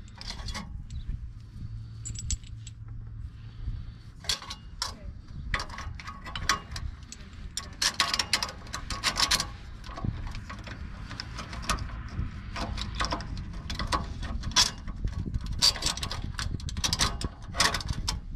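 Evil Energy stainless steel exhaust band clamp and its bolt clinking and scraping against each other and the exhaust pipe as they are fitted by hand: many short metallic clicks and rattles, thickest about eight to ten seconds in and again near the end.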